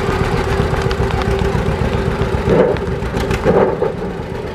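Two-cylinder John Deere tractor engine running slowly with a rapid low putt-putt, the tractor creeping along under light throttle. Two brief louder bursts come about two and a half and three and a half seconds in.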